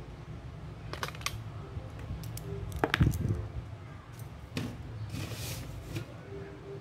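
A sheet of origami paper being creased and handled on a wooden table: scattered sharp clicks and taps, the loudest about three seconds in, and a brief papery rustle near the end, over a steady low hum.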